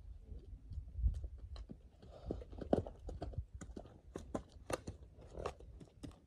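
Devils Garden mustang's hooves striking dry, packed dirt as it trots and canters around the pen: irregular crunching thuds, several a second.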